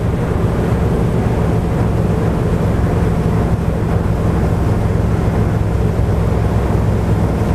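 Twin MerCruiser 496 big-block V8 engines of a Fountain Lightning 35 offshore powerboat running steadily at speed on plane, with the exhaust routed out through the props, under a constant rush of wind and water.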